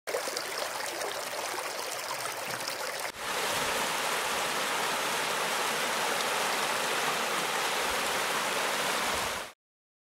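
River water rushing in two takes: a lighter flow with small ticks and splashes for about three seconds, then a cut to a louder, even rush that stops abruptly near the end.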